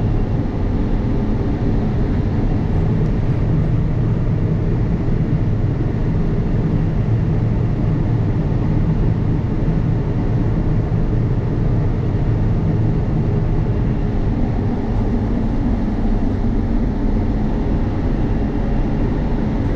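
Combine harvester running steadily while harvesting corn with its unloading auger engaged: a continuous low machine drone.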